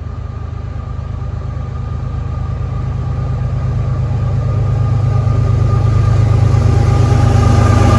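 Diesel locomotives of an approaching CSX freight train, a steady low engine rumble growing louder as it nears.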